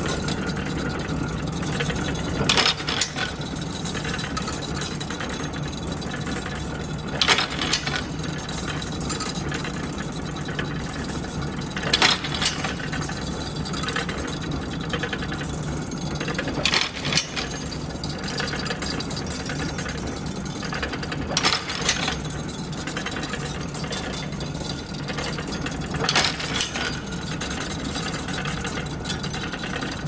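Jäger KMM wire crimping machine running steadily, with a sharp clank repeating about every four to five seconds.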